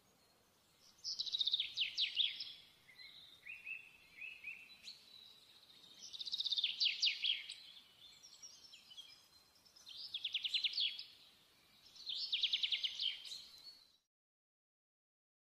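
A small songbird singing: four rapid trilled phrases, each about a second long, with softer chirps between them. It cuts off suddenly near the end.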